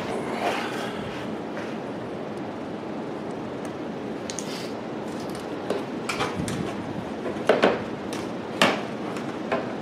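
A few sharp clicks and knocks as the hard plastic TRX marker light bar is handled and set against the truck's tailgate, the loudest a quick pair about two thirds of the way in and another a second later, over a steady background hiss.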